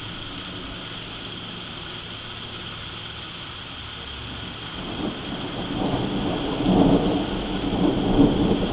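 Thunder rolling in from a lightning storm: a low rumble starts about five seconds in and grows louder toward the end, over a steady faint hiss.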